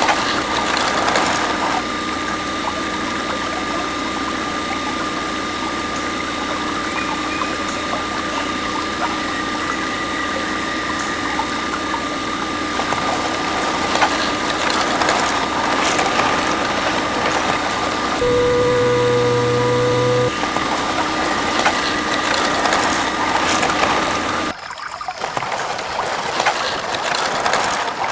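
Small electric motor of a homemade mini water pump running with a steady high whine, over the hiss of water flowing. For about two seconds past the middle a lower steady hum joins in.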